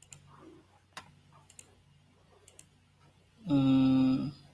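Scattered sharp clicks from computer mouse or keyboard use while a screen share is being set up. About three and a half seconds in, a man gives one short held hesitation sound on a steady pitch, the loudest sound here.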